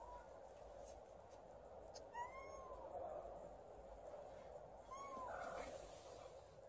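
Kitten meowing twice, faint short calls that rise and fall, about two seconds in and again about five seconds in, over a steady faint background hiss.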